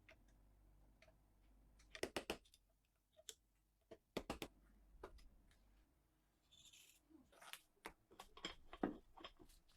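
Quiet, sharp clicks and light taps of small hard parts being handled: a quick run of about four clicks about two seconds in, another about four seconds in, then scattered single clicks and a brief hiss toward the end.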